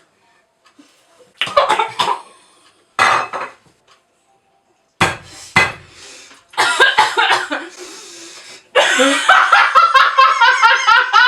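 A person coughing in several separate bouts after nearly choking on a mouthful of cake, then a long run of rhythmic laughter from a little before the end.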